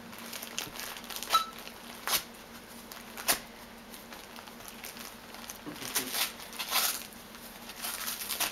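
Basset hound puppy chewing and ripping at the wrapping paper on a present: irregular crinkling and tearing of paper, with a few sharp crackles in the first few seconds and a busier burst of rustling and ripping later on.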